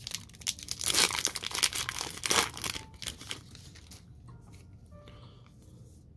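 Foil wrapper of a Topps Big League baseball card pack being torn open and crinkled, the loudest rips about one and two and a half seconds in. The crackling dies away after about three and a half seconds as the cards come out.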